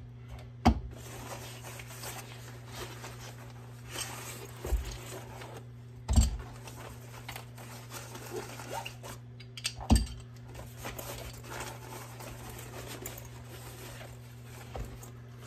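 Pistol cases and gun parts handled on a rubber work mat: rustling and a zipper-like rasp, with a few sharp knocks, the loudest about six seconds in. A steady low hum underneath.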